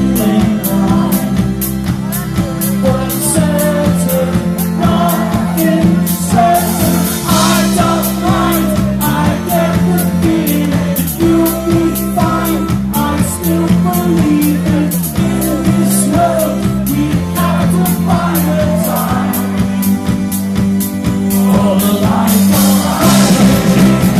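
A live pop-rock band playing through a festival PA: electric guitars, bass, drums and keyboard, with a steady beat and a melodic line over the bass. It gets a little louder near the end.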